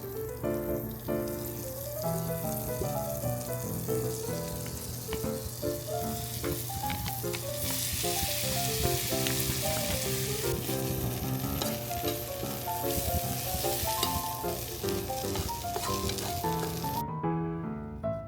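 Food sizzling in a hot frying pan, growing stronger about eight seconds in and cutting off abruptly near the end, over light background music.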